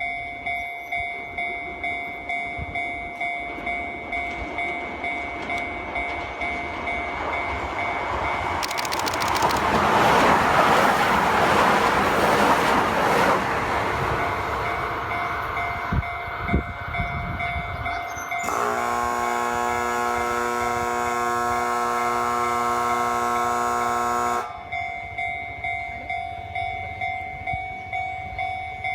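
Level-crossing warning bell ringing in a steady repeating rhythm while a Keihan Keishin Line 800-series train passes about eight seconds in, its running noise swelling and then fading over several seconds. About eighteen seconds in, the crossing's obstacle detector sounds a loud steady buzzer for about six seconds, tripped by a car crossing while the barrier was up, and then the warning bell carries on alone.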